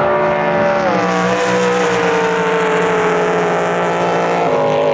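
Drag-racing jet boats' engines running flat out down the course, a loud steady wail that slowly falls in pitch, then jumps back up and starts falling again near the end.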